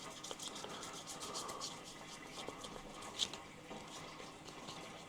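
Faint rubbing and scratching of hands handling a houseplant and its leaves, with one sharper click about three seconds in.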